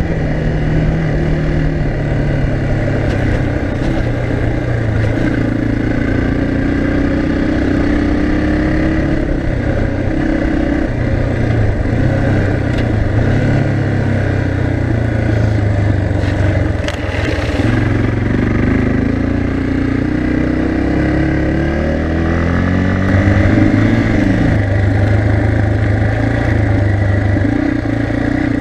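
Yamaha TT-R 230's air-cooled single-cylinder four-stroke engine running while the bike is ridden, heard from the saddle. Its pitch rises and falls over and over with throttle and gear changes. A short rush of noise comes about 17 seconds in.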